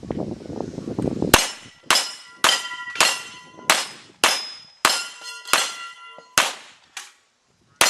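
About ten gunshots in a steady string, roughly one every half second to second, with ringing after several of them as steel targets are hit. Low rumbling noise fills the first second before the first shot.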